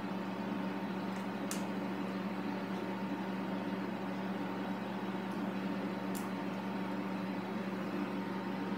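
Steady hum of bench electronics, with two faint clicks, one about a second and a half in and one past six seconds, as oscilloscope probe hook tips are clipped onto a DAC card's output connector.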